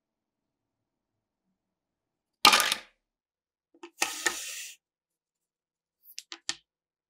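Wooden panels of a Zassenhaus coffee mill's box handled on a workbench: a sharp clatter of wood on wood about two and a half seconds in, a short scraping slide about a second later, then a few light taps near the end.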